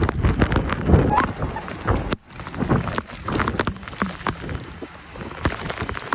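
Heavy rain in strong gusting wind, the wind buffeting the microphone, with many short sharp ticks through it. The noise drops away briefly about two seconds in.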